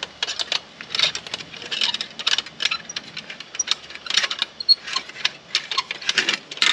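Metal pans and utensils of a camping meths-stove cook set clinking, rattling and scraping against each other as they are handled and fitted together, in many quick, irregular clinks.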